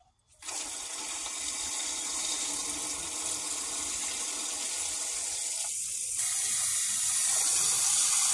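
Water spraying from a garden hose's pistol-grip nozzle into a large metal sap-evaporator pan packed with jars, filling it for a water-bath canning. The spray starts about half a second in, after a short pause, and grows louder about six seconds in.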